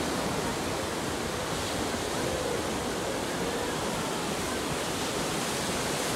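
Ocean surf breaking and washing up a beach: a steady, even rush.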